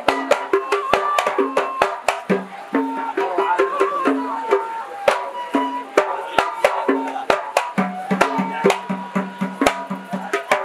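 Hadrami zarbadi music: men's voices singing a qasida over a quick, uneven rhythm of sharp strikes on small marwas hand drums, with short, deep drum tones sounding among the strikes.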